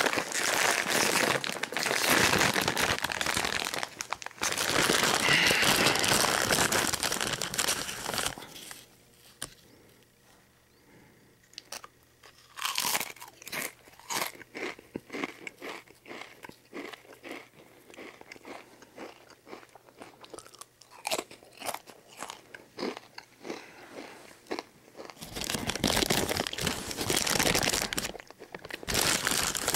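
A foil potato chip bag crinkles loudly as a hand rummages in it. Then come many short, sharp crunches of rippled potato chips being bitten and chewed. The bag crinkles again about 25 seconds in and once more at the end.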